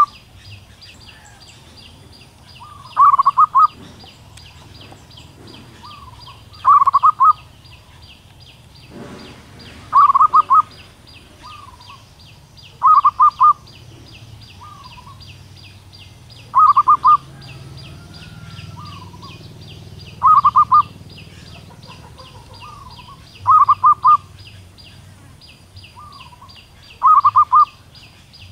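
Female zebra dove calling a male: a short, rapid trilled phrase repeated about every three and a half seconds, eight times, with softer single notes between some phrases. A steady fast high pulsing runs underneath.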